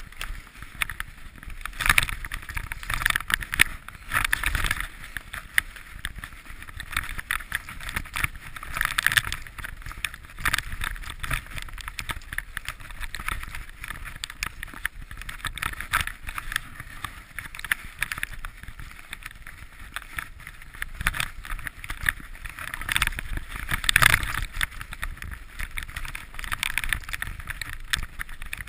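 Mountain bike rolling fast over a rough dirt trail: tyre rumble with constant irregular rattling and knocking of the bike over bumps, and a few harder jolts along the way.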